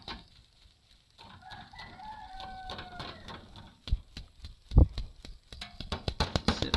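A rooster crows once, a long call of about two seconds starting about a second in. This is followed by two dull thumps, the loudest sounds, and then a run of sharp clicks and rattles.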